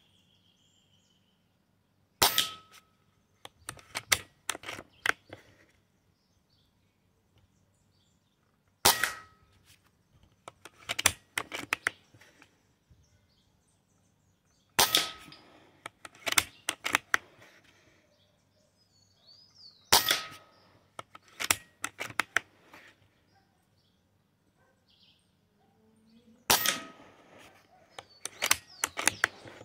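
Five shots from a Fox PR900W 5.5 mm (.22) PCP air rifle, about six seconds apart. Each is a sharp crack followed by a few lighter clicks and knocks.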